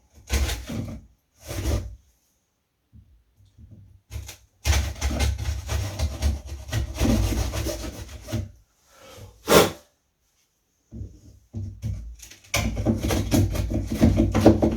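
Wood being scraped away by hand with rapid back-and-forth strokes, trimming the latch hole in a door edge so the latch isn't too tight: two short strokes at first, then long runs of quick strokes, with one brief louder scrape about two-thirds of the way through.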